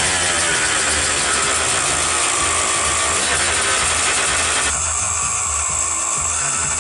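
2003 Kawasaki KX125's 125cc single-cylinder two-stroke engine running and revving up and down, with a wavering pitch. The sound changes abruptly about two-thirds of the way through.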